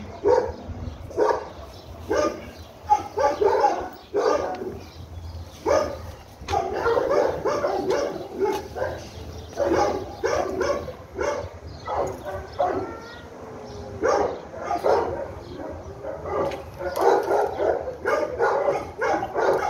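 A dog barking and yipping in short bursts that come in quick, irregular runs.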